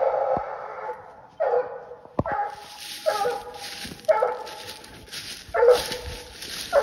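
Coonhound barking at a treed raccoon, with a string of drawn-out tree barks about one a second.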